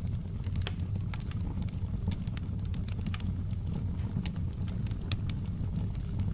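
Wood fire crackling and popping: a steady low rumble of flames with frequent irregular sharp pops and snaps.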